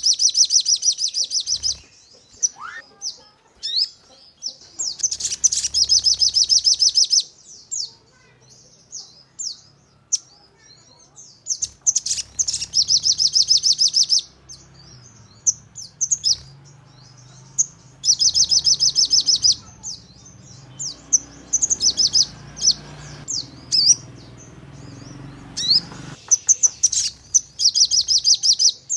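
Sogon (crimson sunbird) singing: loud, rapid high-pitched trills of about two seconds, five of them at roughly six-second intervals, with short sharp chirps between. These are the rapid-fire 'nembak' bursts that keepers use to provoke other sogon into song.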